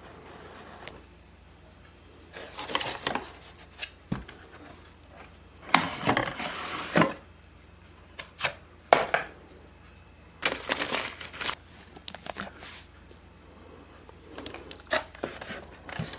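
Packaging being handled and pulled open: irregular rustling, crinkling and tearing of cardboard and plastic wrap, with a couple of short knocks as parts are set down.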